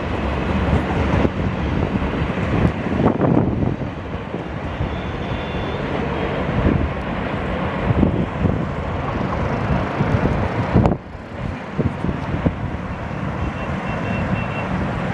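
Passenger train passing close by: a steady rumble of wheels on the rails with irregular clacks over the rail joints. The noise drops briefly about eleven seconds in, then picks up again.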